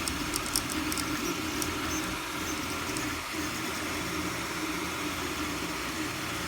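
Anycubic i3 Mega-S 3D printer running with a steady hum, overlaid by a crackle of sharp little clicks that are thickest in the first two seconds and sparser after. The crackle is unexplained: the owner is asking why the new printer makes it.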